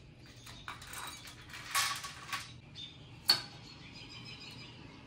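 Small metal engine parts being handled at the front of an LS V8 with its timing chain off: a few light scrapes and clinks, then one sharp metallic click a little over three seconds in.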